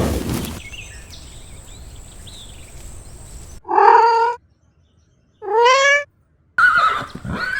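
A domestic cat meowing twice, each meow under a second long, the second rising in pitch. Near the end a different, higher-pitched wavering sound begins.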